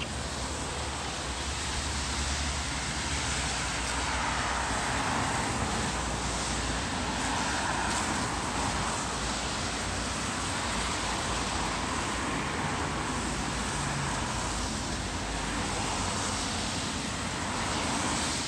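Steady hiss of rain mixed with the tyre hiss of traffic on wet roads, swelling a little a few seconds in and then holding level.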